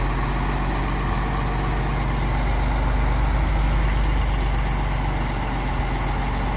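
Crane engine running steadily with a low, even hum as the crane lifts a car off a fairground jet ride.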